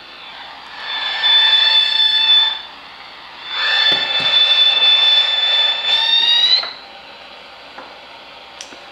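AM radio static hiss, twice overtaken by a loud high-pitched whine with overtones: radio-frequency interference from a switching USB power adapter held near the radio. The first whine lasts about a second and a half, the second about three seconds, rising slightly in pitch just before it cuts back to plain static.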